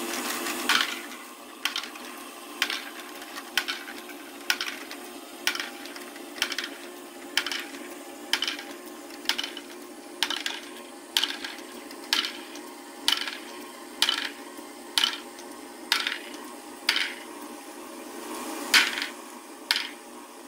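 LEGO Great Ball Contraption step lifter running: plastic balls click and clack against the moving plastic arms about once a second as they are stepped up the staircase, over the steady hum of the module's motor and gears.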